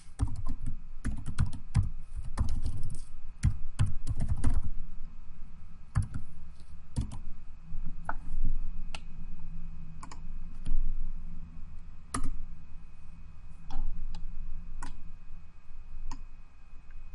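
Typing on a computer keyboard: a quick run of keystrokes for the first four or five seconds, then single clicks spaced a second or two apart.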